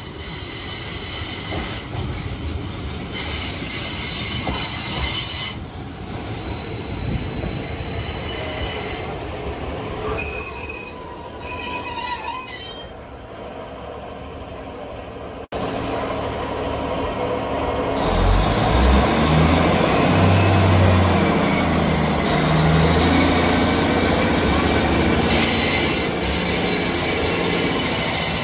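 Northern Class 150 Sprinter diesel multiple unit arriving and slowing to a stop, with high steady squealing tones from its wheels and brakes that stop and start near the stop. After an abrupt cut it pulls away: its underfloor diesel engines run up with a low note that steps up in pitch as it accelerates, over rising rail and running noise.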